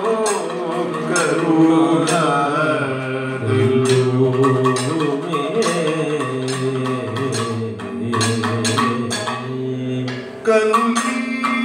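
Kathakali music: male singers chanting a song line in a slow, gliding, melismatic style, with sharp metal strikes and drum strokes keeping time.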